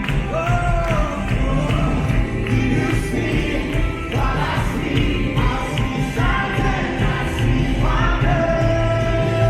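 Church worship music: singers leading a gospel song over a band with steady percussion, with a long held sung note near the end.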